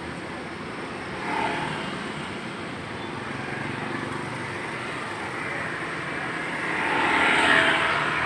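Road traffic noise from engines running on the street, with a vehicle swelling louder as it passes about a second and a half in, and a bigger, longer swell near the end.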